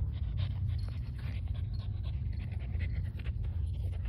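French bulldog panting hard in a quick, repeated rhythm, over a steady low rumble.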